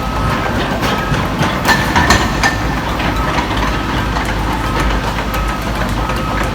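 Diesel engine of a Volvo EC55D mini excavator running steadily, with a few metallic clanks about two seconds in.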